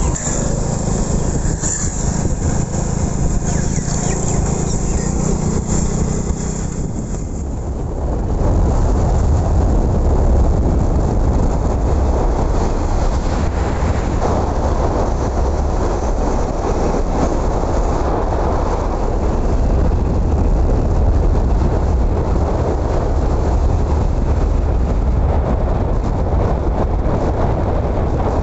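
Honda motorcycle engine running steadily while riding, with road and wind noise; about eight seconds in a heavy low wind rumble on the microphone takes over and gets louder.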